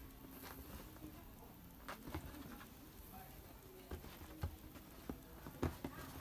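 Kittens wrestling and pouncing on a sheet-covered bed: irregular soft thumps and pattering of paws and bodies on the fabric, the loudest thump near the end.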